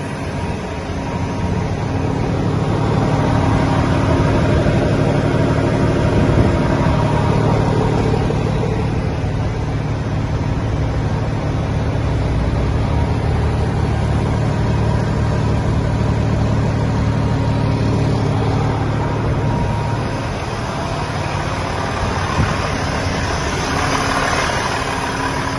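Volvo A35F articulated dump truck's D13 six-cylinder diesel engine idling steadily, its low note easing somewhat about twenty seconds in.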